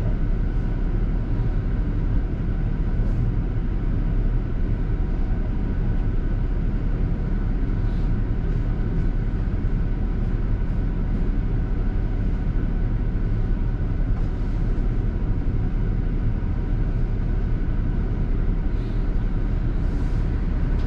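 Double-decker bus running, heard from inside the bus: a steady low rumble of engine and road noise, with a few faint rattles.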